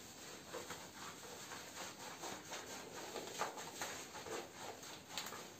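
Hands scrubbing shampoo lather into a wet boxer dog's short coat: an uneven run of soft rubbing strokes.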